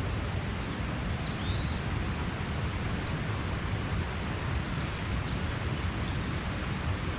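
Steady rushing of a mountain stream, with a small bird giving short high chirps about once a second.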